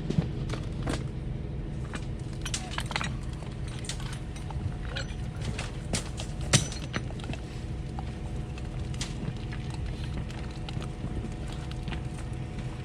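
Concrete boom pump truck running steadily while it pumps concrete through the end hose, with a few sharp knocks and clicks, the loudest about six and a half seconds in. The mix is smooth, so little rattling is heard in the line.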